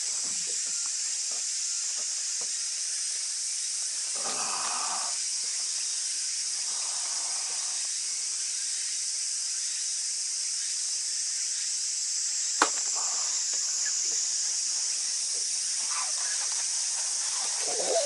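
A steady, high-pitched chorus of insects. A few soft rustles and one sharp tap come from handling gear on the boat.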